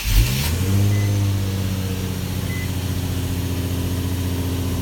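A 2007 Nissan 350Z's 3.5-litre V6 fires on a remote start. Its revs rise over the first second, then it settles into a steady idle.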